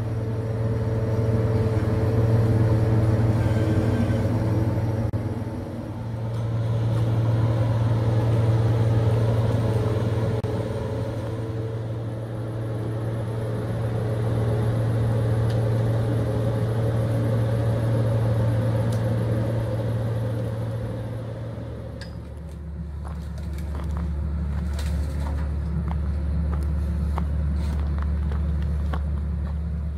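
Combine harvester's diesel engine running steadily as the machine drives slowly, a loud low hum that swells and eases. About two-thirds of the way in, the hum drops to a lower pitch and scattered sharp clicks come through.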